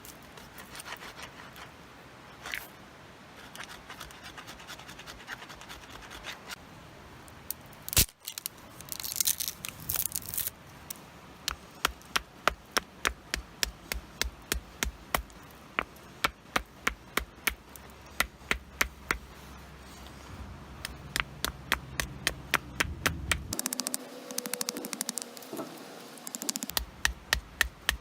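A sharp stone scraping a wooden stick, shaping it for a hand drill, in a steady run of short strokes about two to three a second. A single sharp knock comes about a quarter of the way in.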